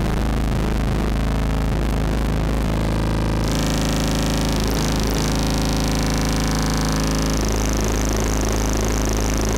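Patchable four-oscillator drone synthesizer playing a harsh electronic drone of stacked steady tones over a deep hum, changing as its knobs are turned. About three and a half seconds in a bright hiss joins, and near the end a fast warbling pulse sets in.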